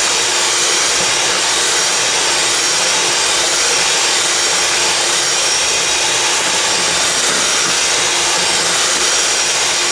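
Electric mixer running steadily, its twin beaters whipping egg whites and sugar into a stiff meringue in a bowl.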